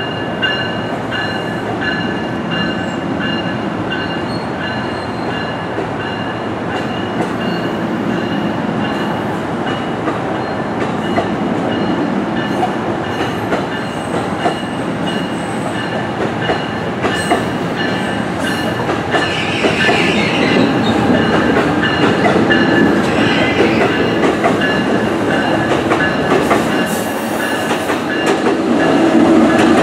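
NJ Transit multilevel commuter train running along the platform: a steady rumble of wheels on rail, with clicks over the rail joints, a few high steady whining tones and some wheel squeal. It grows louder near the end as the cars pass close by.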